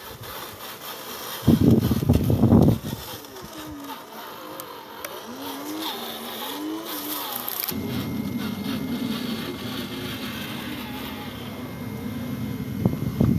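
Small electric motor and gearbox of a radio-controlled Nissan 5-ton dump truck whining as it drives, the pitch rising and falling with the throttle, then running steadily. A short loud rumble comes about a second and a half in.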